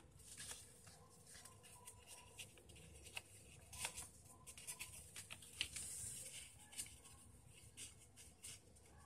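Faint crackling and rustling of a square sheet of paper being folded and creased by hand: irregular small clicks throughout, with a louder rustle about six seconds in.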